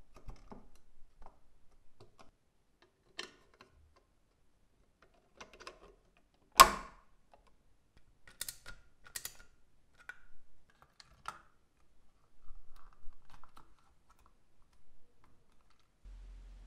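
Scattered clicks and taps of hard plastic toy parts being handled and fitted together, with one loud sharp click about six and a half seconds in, then further small clicks as a screwdriver drives a small screw into the plastic part. A steady low hum starts near the end.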